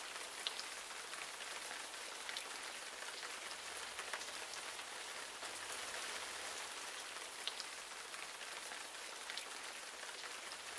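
Young Living Rose home ultrasonic diffuser running and misting: a faint, steady watery hiss with a few tiny scattered ticks.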